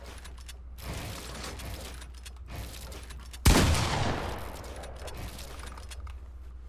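A single loud bang about halfway through that dies away over about a second, over a steady low hum.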